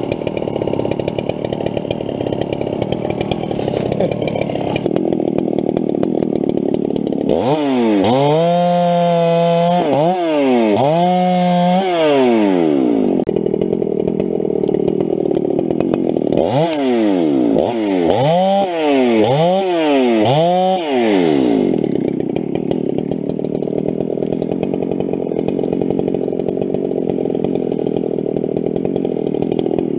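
Gas chainsaw running hard, its engine revved up and down in quick throttle blips: a few about a quarter of the way in and several more past the middle.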